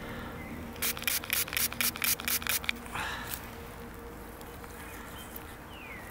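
A spray bottle squirted onto a freshly dug metal medal in about ten quick short bursts over two seconds, wetting the find to loosen the dirt before brushing.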